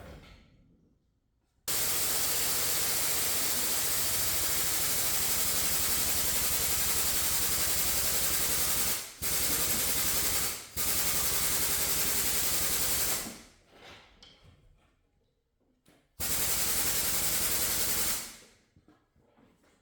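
A power tool running in three long bursts, starting and stopping abruptly, with a fast steady buzz and a hiss over it.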